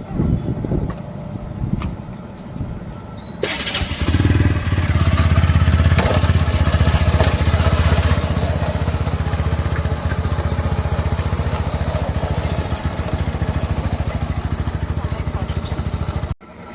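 Single-cylinder engine of a TVS Apache RTR 160 4V motorcycle running. It gets louder about four seconds in, holds steady, and cuts off suddenly near the end.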